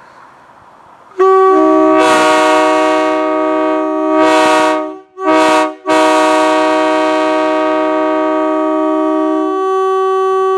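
Multi-chime locomotive air horn blown on compressed air, sounding a loud chord of several notes (a D chord). It comes in about a second in, breaks off twice briefly around the middle, then holds on, with some of its notes dropping out near the end.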